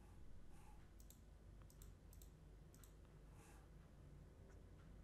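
Near silence with a few faint computer-mouse clicks, some in quick pairs.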